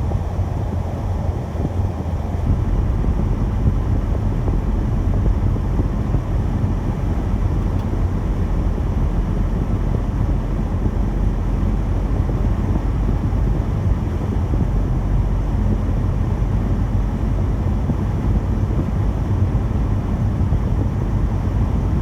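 Car driving steadily on a snowy road: a continuous low rumble of engine and road noise with some wind, unchanging throughout.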